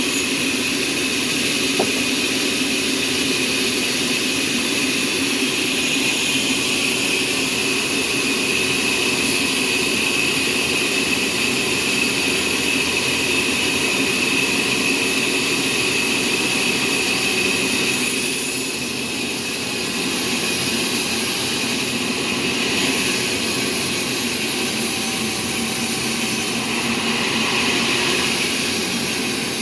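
Sawmill machinery running steadily, a continuous machine noise with a high whine over a lower hum, easing briefly about two-thirds of the way through.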